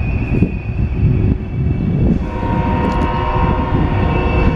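Freight cars of a mixed freight train rumbling and clattering past close by. About two seconds in, a steady high-pitched squeal joins, typical of wheel flanges grinding on the curve as the train turns.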